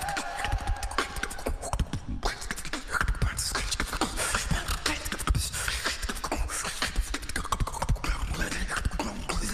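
Beatboxing: fast vocal percussion with deep kick-drum thumps, sharp clicks and hissed snare sounds in a dense, continuous rhythm.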